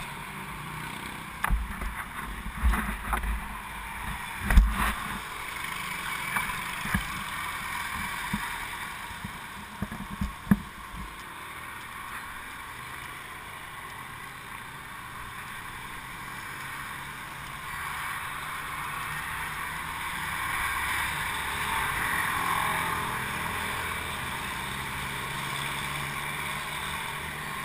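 Knocks and thumps on a handlebar-mounted action camera for the first ten seconds or so, then steady street traffic and wind noise while the bicycle rides along, swelling a little past the halfway point.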